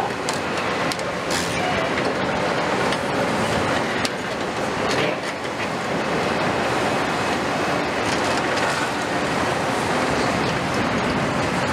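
Large demolition excavators running while a long-reach excavator's demolition shear crushes concrete, with a dense, continuous clatter of knocks and falling debris.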